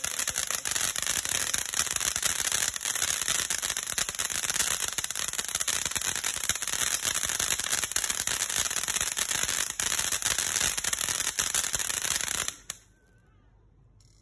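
Ground fountain firework spraying sparks: a steady loud hiss packed with fast crackles, which cuts off suddenly as the fountain burns out about twelve and a half seconds in.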